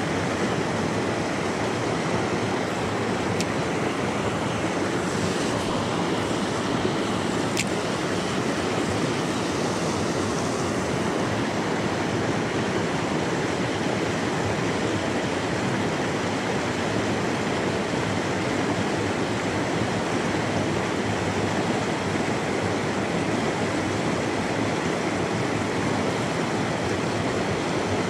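River water rushing steadily over a rocky riffle, an even, unbroken roar of white water.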